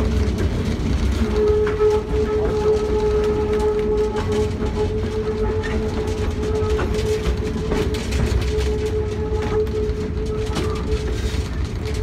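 Tourist passenger train pulled by an EMD SW9 diesel switcher, rolling slowly along: a low, steady engine rumble with a steady whining tone on top, and wheels clicking over the rail joints.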